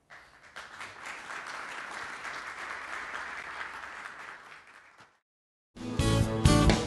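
Audience applauding for about five seconds before the applause is cut off. After a brief silence, loud music starts near the end.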